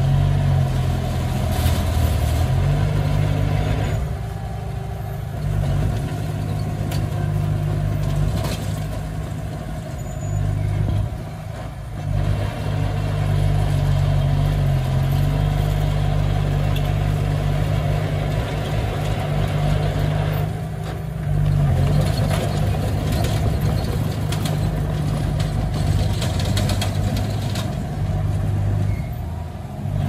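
Diesel engines of a crawler bulldozer and a dump truck running, the engine note shifting in pitch as the machines work and easing off briefly a few times.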